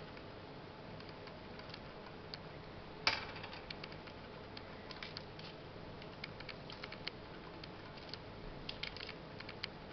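Faint clicks and rustling of hands working a small plastic cup of perlite potting mix while planting a baby African violet, with one sharper click about three seconds in.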